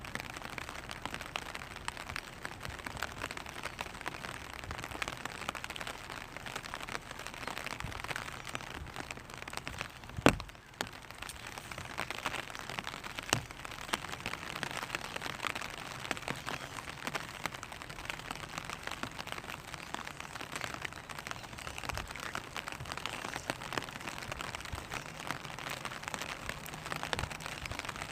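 Rain falling on a clear vinyl umbrella: a dense, steady scatter of small drop ticks on the plastic canopy, with one sharp, much louder tap about ten seconds in and a smaller one a few seconds later.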